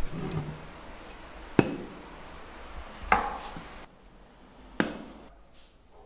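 Several short knocks and clicks of a restored axe being handled and set down on a wooden tabletop, spaced a second or more apart, the strongest about three seconds in.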